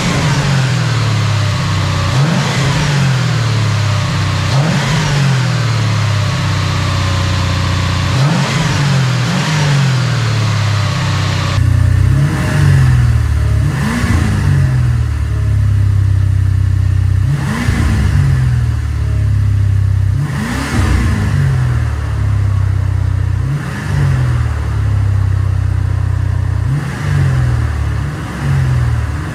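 Mercedes-Benz 560SEC's V8 engine revving again and again, its pitch climbing and falling away every two to three seconds. About a third of the way through the sound turns fuller and deeper.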